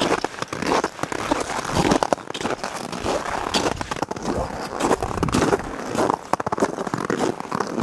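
Boots fitted with traction spikes crunching on packed, icy snow in an irregular walking pace, with crackly, scrunching steps.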